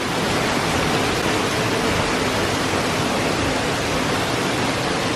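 A waterfall's falling water rushing steadily.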